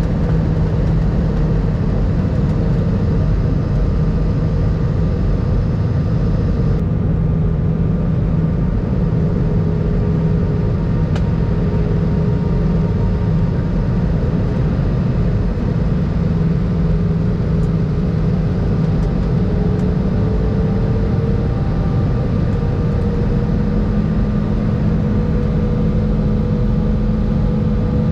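Airbus A319 cabin noise during descent: a steady rumble of jet engines and airflow with a few steady engine tones. About twenty seconds in, the engine tones drift briefly lower and then settle slightly higher, a small change in engine thrust.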